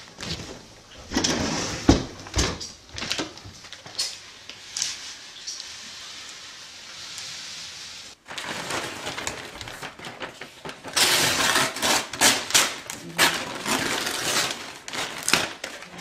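Masking-tape transfer sheet being peeled off a vinyl wall decal, crackling and rustling as it comes away from the wall and the decal, with louder, denser crackling in the second half.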